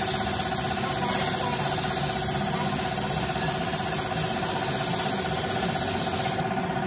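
A motor or engine running steadily with a constant hum and hiss; the hiss fades out near the end.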